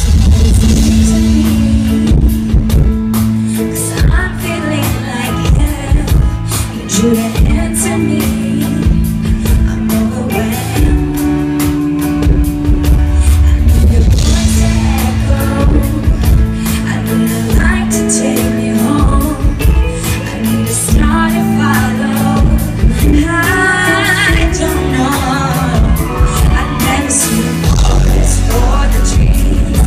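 Live performance of a pop ballad: a female singer with band accompaniment, sustained low instrumental notes under a wavering vocal line.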